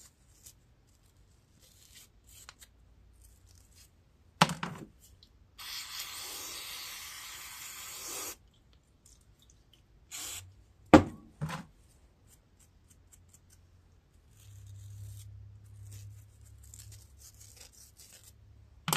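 An aerosol can of carburetor cleaner sprayed in one steady hiss of about three seconds onto carburetor parts, about six seconds in. Sharp knocks and clicks of the small metal parts being handled on a metal bench come before and after it, the loudest about eleven seconds in, and a fainter rubbing noise follows near the end.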